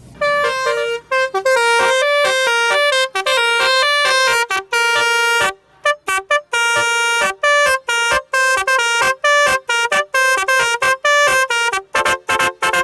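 Telolet bus horn, the multi-tone musical horn of Indonesian buses, playing a melody of buzzing pitched notes in quick succession. A run of fast, short notes comes near the end.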